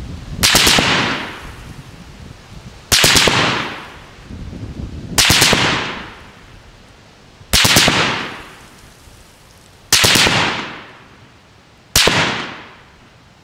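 Full-auto rifle fire from a light automatic weapon: six short bursts of a few rounds each, about two to two and a half seconds apart. Each burst is followed by a long echo dying away.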